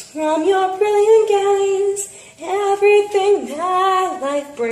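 A girl singing a slow melody solo, holding long notes, with a short breath break about two and a half seconds in.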